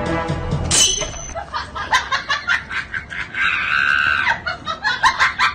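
A run of short sharp clicks and knocks, with one high-pitched scream lasting about a second, a little over three seconds in.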